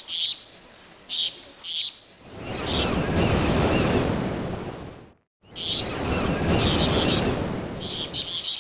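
Ocean surf with birds chirping over it: a wave swells in and fades, the sound cuts out for a moment about five seconds in, then the surf and chirping pick up again.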